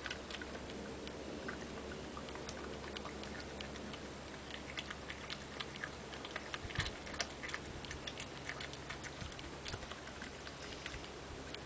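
A badger eating peanut butter: irregular small clicks and smacks of its chewing and licking, a little louder around the middle.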